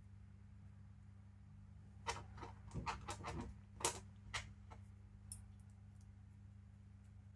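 A run of light clicks and taps from about two seconds in to about four and a half, with one more a second later: small metal armature parts (ball joints, hex screws) being handled. A steady low electrical hum underneath.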